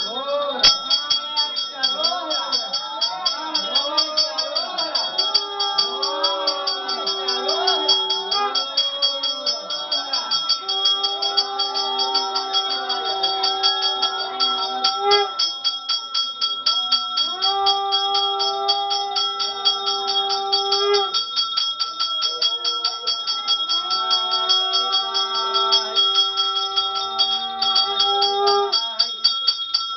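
Puja hand bell rung rapidly and continuously during an aarti before a Shiva lingam, with a voice chanting over it, holding long notes four times from about five seconds in.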